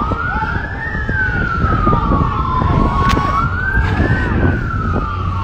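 Police car siren on the slow wail, its pitch rising quickly and then falling slowly, twice, over a rough rumble of wind on the phone microphone of a moving bike.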